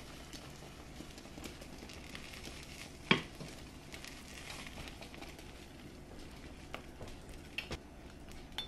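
Omelette eggs cooking with a faint sizzle in a non-stick frying pan, with a fork's light taps and scrapes against the pan as the salmon is pressed into the egg. One sharper clink about three seconds in, and a few small clicks near the end.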